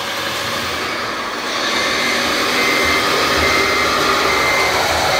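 Steady whirring of RC scale-model motors, with a faint high whine that comes and goes in the second half.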